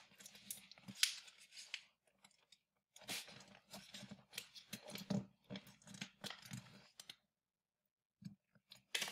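Faint, irregular crinkling and rustling of a sheet of paper being folded and creased by hand, as a paper dart airplane's wing is folded down. The rustling stops for about a second near the end, broken by a single tick.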